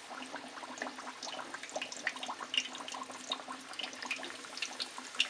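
Sopaipilla dough deep-frying in hot oil in a metal pan: a dense, irregular sizzle of crackles and pops.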